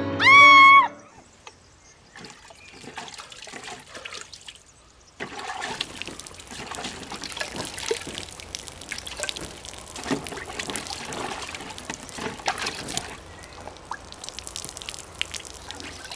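A thin stream of liquid running off the edge of a painted board and trickling and pattering onto the ground, louder from about five seconds in. It opens with a brief, loud high-pitched tone that rises and falls.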